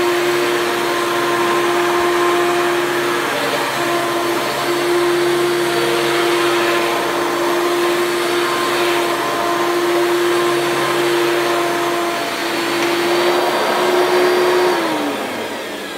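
Hoover Elite II upright vacuum cleaner running steadily on carpet, with a motor that is still smoothing out after restoration. Near the end its pitch falls and it winds down.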